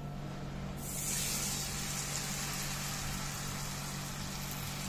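Gram-flour and semolina batter sizzling on a hot, oiled frying pan. The hiss starts suddenly about a second in and then goes on steadily.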